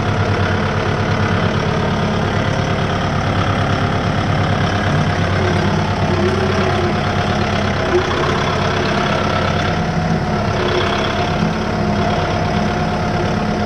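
Kubota 4WD tractor's diesel engine running steadily as the tractor drives over grass.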